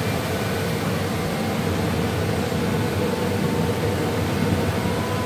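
Steady rushing hum of an airliner cabin's air-conditioning ventilation during boarding, with a faint steady tone beneath it.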